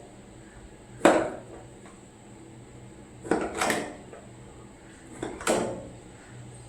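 About five sharp knocks and clunks of hard objects being handled and set down: one about a second in, then pairs a little past the middle and near the end.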